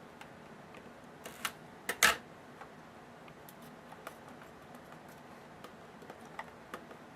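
Handling of a sealed trading-card box: a few scattered clicks and taps, the loudest a sharp pair of knocks about two seconds in.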